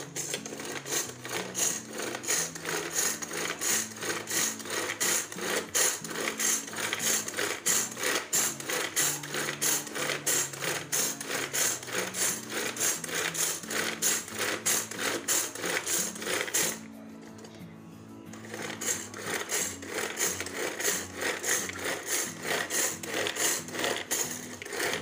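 Hand-pulled string food chopper churning aloe vera pulp and yogurt. The cord is pulled over and over in a quick, even rhythm, each pull setting the blades whirring inside the plastic bowl, with a pause of about two seconds a little past the middle. Background music plays underneath.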